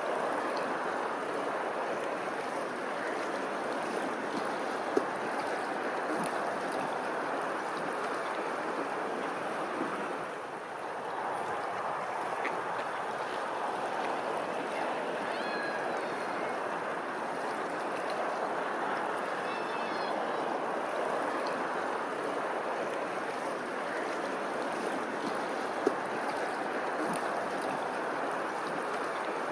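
Steady rush of running water. Two faint short high calls sound around the middle, and two brief sharp clicks stand out above the water.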